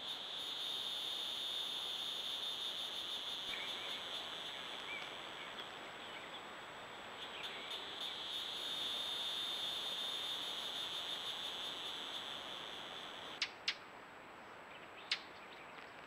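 Steady, high-pitched insect buzzing that dips and returns midway, with a few faint short chirps. Near the end there are three sharp clicks.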